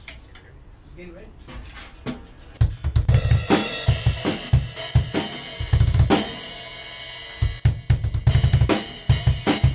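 A drum kit played in band practice. A couple of seconds of light, scattered taps, then from about two and a half seconds in, fast, heavy bass-drum hits under crashing cymbals, with a stretch of mostly cymbal wash about halfway through before the kick comes back.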